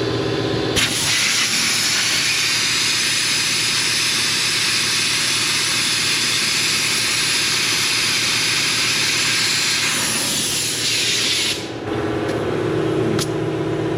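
Compressed air hissing steadily into a Kubota tractor's rear tire through an air hose, inflating it once the bead has seated. The hiss starts about a second in and cuts off suddenly near the end. A steady motor hum runs underneath and is heard plainly before and after the hiss.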